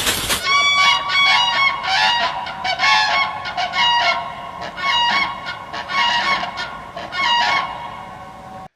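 A bird calling over and over, loud pitched calls about two or three a second.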